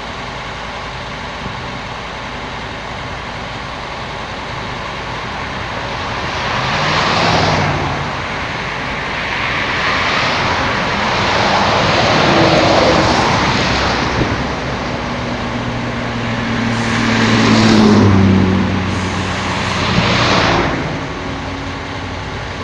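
Motor vehicles passing one after another over a steady engine hum. Each pass swells and fades over a second or two, one of them rising in pitch about seventeen seconds in.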